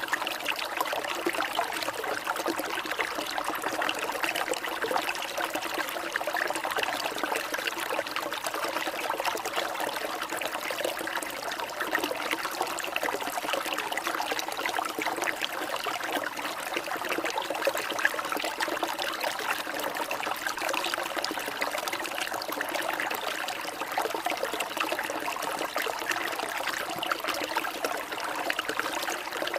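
Water trickling steadily, with no pauses or changes.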